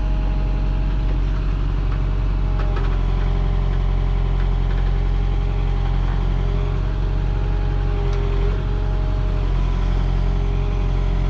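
JCB 3CX Compact backhoe's diesel engine running steadily while the machine pushes and moves dirt.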